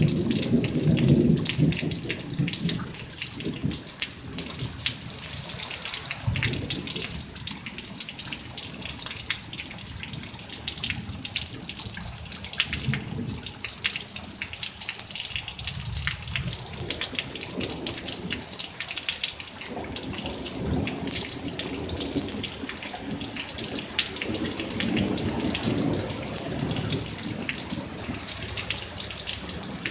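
Steady rain falling, with many small drop impacts over running, gushing water.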